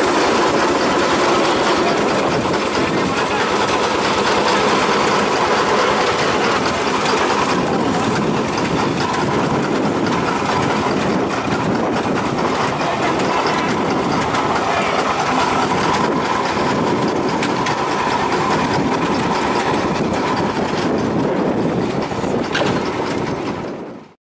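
Steam traction engine running as it drives across grass, a steady mechanical sound that cuts off suddenly near the end.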